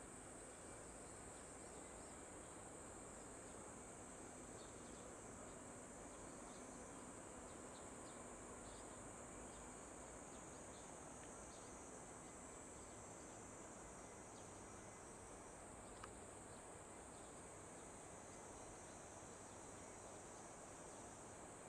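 Faint outdoor summer ambience: a steady high-pitched insect chorus over a low, even rushing noise. A single sharp click comes about sixteen seconds in.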